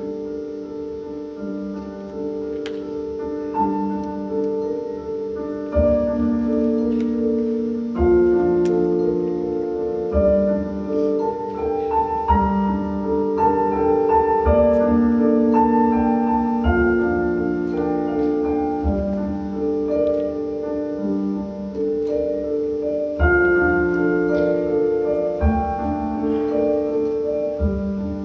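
Slow, sustained piano music: held chords with a melody of single notes above. From about six seconds in, deep bass notes are struck every two to three seconds.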